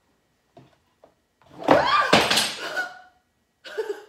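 A woman's loud, wordless vocal sound, its pitch sliding up and down, starting about a second and a half in and lasting about a second and a half. A short burst of voice follows near the end.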